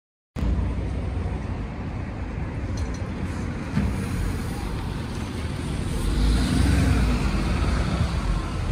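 Alexander Dennis Enviro400 double-decker diesel bus driving past at close range and pulling away, a low engine rumble over street traffic. The sound cuts in abruptly just after the start, and the rumble swells about six seconds in.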